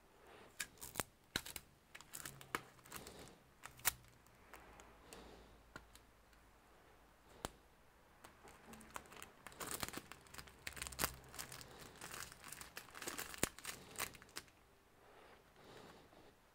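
Thin clear plastic wrapping crinkling and crackling as it is peeled off a laptop display panel and crumpled in gloved hands. The crackles come in two busy spells, one in the first few seconds and a longer one from about halfway until shortly before the end.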